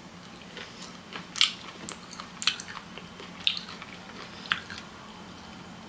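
A person chewing a mouthful of pickled sushi ginger: a few short, wet mouth smacks and squelches spaced about half a second to a second apart.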